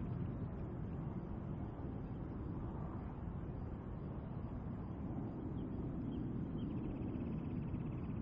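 Steady low outdoor rumble, with a faint rapid high-pitched trill coming in near the end.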